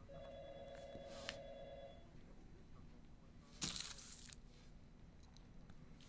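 An electronic telephone rings once, a warbling two-tone ring of about two seconds. About three and a half seconds in comes a short, sharp crinkle of plastic wrap under a hand, the loudest sound.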